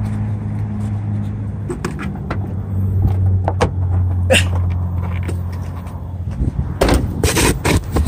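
A car engine idling with a steady low hum that fades out about six seconds in, under scattered knocks and clatter of gear being handled. Near the end come a few loud scuffling bursts.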